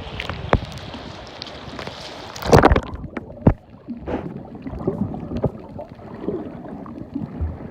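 Sea water splashing around a snorkeler, with a loud splash about two and a half seconds in; after it the sound turns muffled, with low gurgling and bubbling heard underwater.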